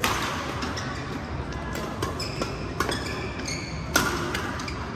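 Badminton rally: sharp racket hits on the shuttlecock every one to two seconds, the loudest near the end, ringing in a large hall, with court shoes squeaking on the mat between shots.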